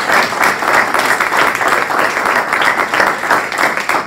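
A congregation applauding: many hands clapping quickly and steadily in a dense patter.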